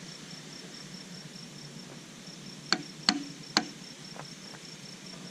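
A cricket chirping steadily in rapid high pulses, with three sharp knocks in quick succession a little past halfway and two fainter taps after them.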